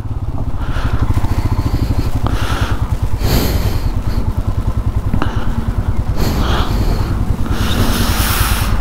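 Motorcycle engine running with a steady, rapid low firing pulse. A rushing noise swells and fades several times over it.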